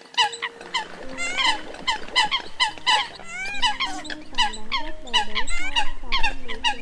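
Dense chorus of Eurasian coot calls: short, sharp notes repeated several times a second, overlapping, with lower arching calls mixed in.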